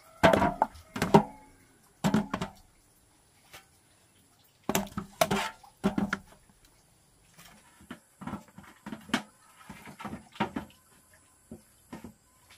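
Bamboo tubes knocking and clunking as they are handled and set down, a string of irregular knocks with the loudest in about the first second and a half.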